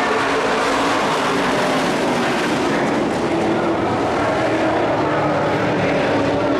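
Several dirt-track race trucks running hard together on a dirt oval, a steady, loud mix of engine notes that rise and fall against each other as the trucks go through the turns.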